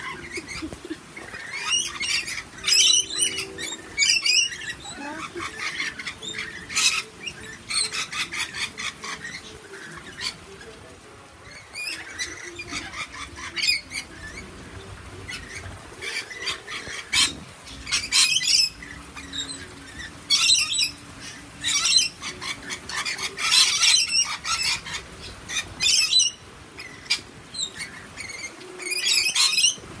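A flock of rainbow lorikeets screeching and chattering, high calls coming in repeated short bursts one after another.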